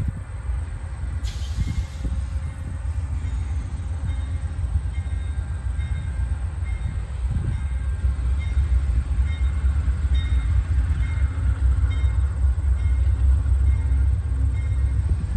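Amtrak GE P42DC diesel locomotive pulling a passenger train out of the station under power. Its engine is a steady low rumble that grows louder over the second half as the train draws nearer.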